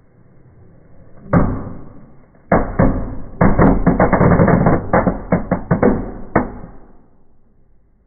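Fireplace firework, a cracker made from an empty kitchen-paper roll, going off in the fire. It gives a sharp bang about a second in and another a second later, then a rapid string of cracks and pops for about three seconds that dies away.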